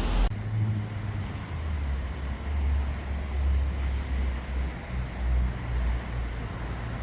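A brief rush of fast-flowing floodwater cuts off a moment in. It gives way to a low, uneven rumble of road noise inside a moving car.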